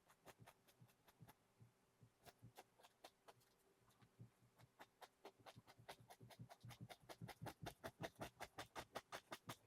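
Faint taps of a fan brush dabbing oil paint onto a canvas, sparse at first and coming quicker and closer together from about halfway through.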